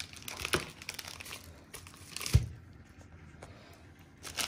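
Plastic bubble wrap crinkling and crackling as a sheet of it is handled and smoothed flat, with one dull thump about halfway through.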